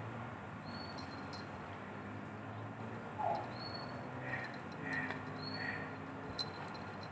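Three short high animal squeaks about half a second apart, after a brief lower squeak a little before them, over a faint steady background hiss.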